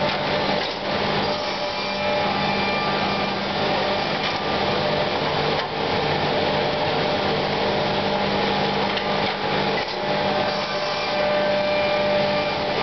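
KOCH SBFD-B sawing, drilling and shaping machine with its BL-25 drilling and grooving unit running steadily, a mix of electric motor hum and whine with the rush of dust extraction air. A few brief knocks sound through it.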